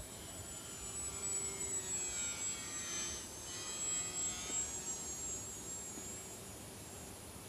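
Small electric RC model airplane's motor and propeller whining as it flies past, louder for a few seconds, with the pitch falling as it passes about three seconds in.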